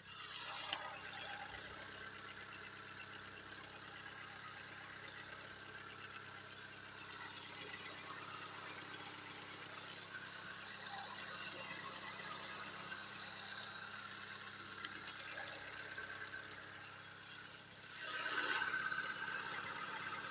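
Car engine idling on a cold start, running quietly with no knocking, a steady hum with thin high-pitched tones over it. It gets louder near the end.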